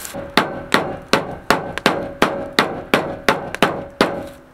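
A hand-held metal meat pounder striking venison through plastic wrap on a pickup tailgate: about a dozen sharp, even blows, roughly three a second, each with a short ringing after it.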